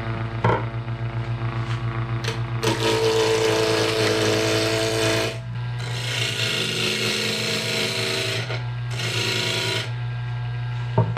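Harbor Freight 10×18 benchtop mini wood lathe humming steadily at about 1600 RPM with a teak bowl blank on the faceplate. From about three seconds in, a 5/8-inch bowl gouge cuts into the spinning wood in three spells of rough, hissing cutting, roughing the blank round.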